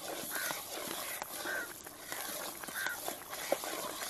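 Long metal ladle stirring thick Tirunelveli halwa batter in a black iron kadai, a short scrape about once every second and a bit, with scattered small crackles and ticks.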